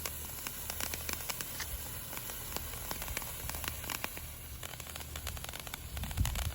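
Handheld firework fountain burning, a steady hiss of sparks with dense irregular crackling. A short low thump near the end.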